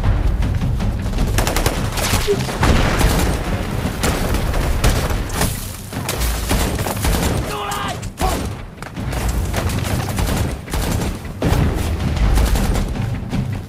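Battle-scene soundtrack of dense rifle and machine-gun fire: many rapid shots overlapping with no let-up.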